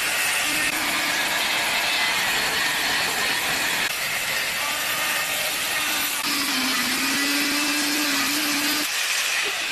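A power tool running steadily, a continuous hiss with a faint high whine and a lower hum that drops out about nine seconds in.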